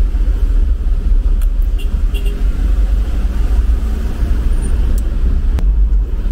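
Isuzu Traviz light truck driving on a wet, partly flooded road, heard from inside the cab: a steady low engine and road rumble with tyre hiss from the wet surface. A few light clicks come through over it.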